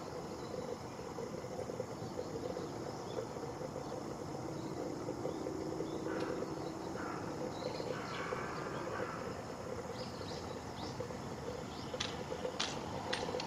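Outdoor ambience with a steady low background hum, broken by a few faint bird chirps in the middle and several short, sharp chirps or ticks near the end.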